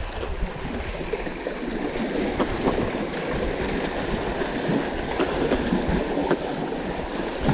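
Sea water sloshing and lapping against rocks, a steady uneven wash with a few faint clicks.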